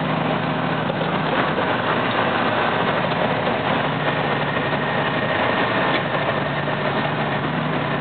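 Western Star log truck's diesel engine running steadily on the move, heard from inside the cab, a constant low hum over the rushing noise of the tyres on a gravel road.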